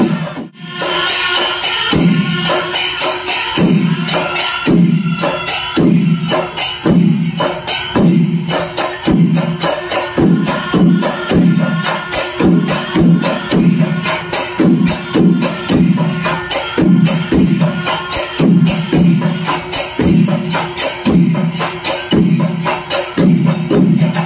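Kerala temple percussion ensemble, a chenda melam: chenda drums and elathalam hand cymbals play a fast, dense rhythm, with a deep drum stroke falling in pitch about once a second. The sound drops out briefly just after the start.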